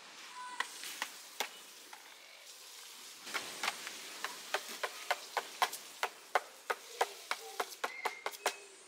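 A run of short, sharp clicks, about three or four a second, from attempts to light a charcoal barbecue, over a faint steady hiss.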